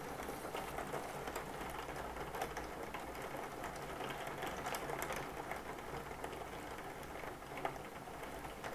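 Rain pattering on a window and sill: a steady hiss full of small irregular taps.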